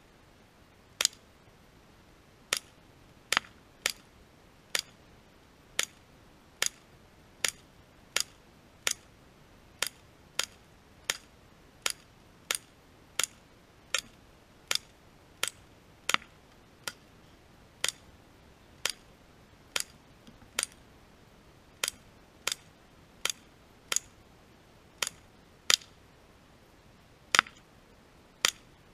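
CO2-powered .177 air pistol fired shot after shot, about 35 sharp pops in all at a steady pace of a little under one a second.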